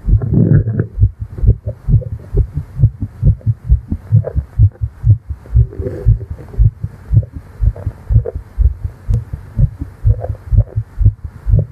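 Fast human heartbeat heard close against the chest: a steady run of low, muffled thumps in quick lub-dub pairs, several a second.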